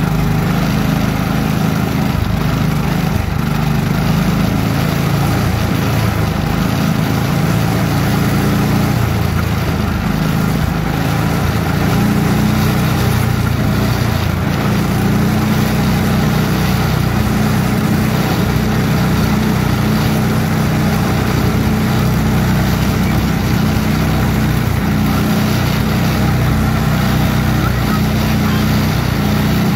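Small engine of an antique-car amusement ride running steadily as the car drives along, with its pitch wavering a little.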